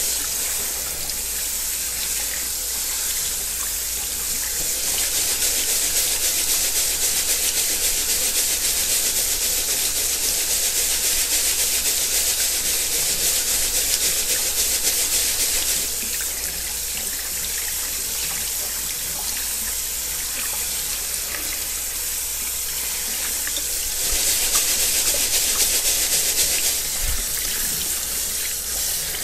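Kitchen faucet running steadily onto rice in a mesh strainer, the water splashing into a stainless steel sink. The flow gets louder for about ten seconds from around five seconds in, and again for a few seconds near the end.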